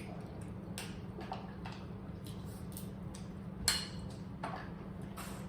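Eating a seafood boil: scattered small clicks and wet smacks of mouths and hands working shellfish, with one sharper click about three and a half seconds in, over a steady low hum.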